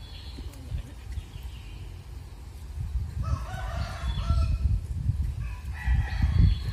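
A rooster crowing twice, about three seconds in and again near the end, over a low rumble.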